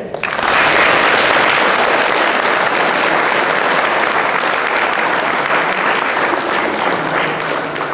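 Audience applauding: steady clapping from many hands that tails off near the end.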